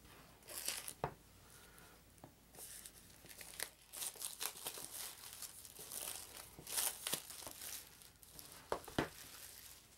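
Plastic shrink-wrap being torn and crinkled off a cardboard game box, in repeated crackling bursts. A few sharp taps of the box sound about a second in and twice near the end.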